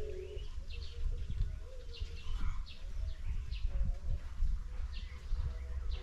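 Small birds chirping on and off, short high chirps about one or two a second, over a steady low rumble.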